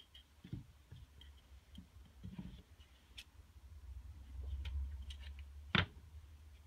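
Quiet tabletop handling of small tools: scattered light clicks and taps, scissors cutting, a low rumble of handling, and one sharper click near the end as the scissors are put down.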